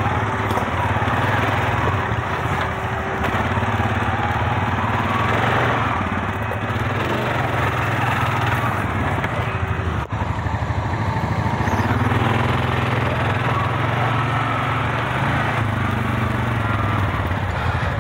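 ATV engine running steadily under load while riding a rough dirt trail, with a brief dropout about ten seconds in.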